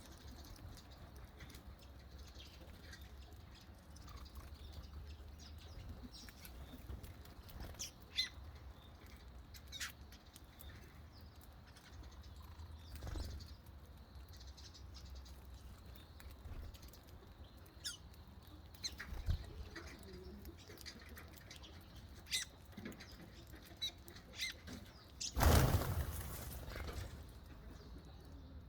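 Small birds chirping now and then with short, high calls over a low background rumble. About 25 seconds in there is a brief loud burst of noise, the loudest moment.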